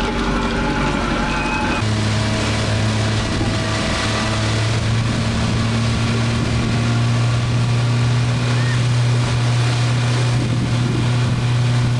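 Motorboat engine running at a steady, constant speed with a low hum while towing an inflatable tube, with water rushing and wind noise over it. The engine hum comes in strongly about two seconds in.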